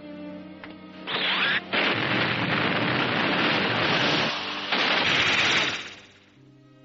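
Animated-film sound effect of a raging blaze: a loud, even rushing hiss that starts suddenly about a second in, breaks off briefly twice, and fades away near the end. Soft orchestral music dies away just before it.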